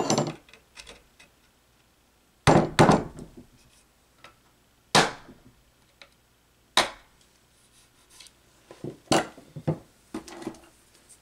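Hammer striking a punch held against an electric motor's end bell, punching alignment marks on both ends before disassembly. There are two blows in quick succession about two and a half seconds in, then single blows at about five and seven seconds, followed by lighter knocks and clinks as the tools are set down near the end.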